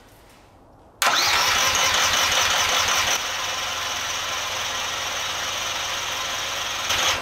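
Ride-on lawn mower engine being cranked by its electric starter for about six seconds without catching. It starts abruptly about a second in, is loudest for the first two seconds, then goes on steadily at a slightly lower level. The engine won't fire because the seat safety switch is not pressed down.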